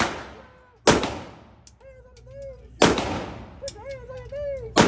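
Pistol shots on an indoor firing range: three single shots about two seconds apart, the last at the very end, each followed by a long echoing tail.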